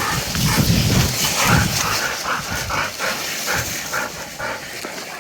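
Hunting dog panting quickly and evenly, about three breaths a second.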